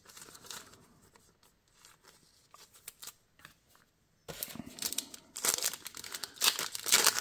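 Foil wrapper of a Panini Phoenix basketball card pack crinkling and tearing as it is opened. It starts about four seconds in, after a few soft clicks of cards being handled, and grows louder toward the end.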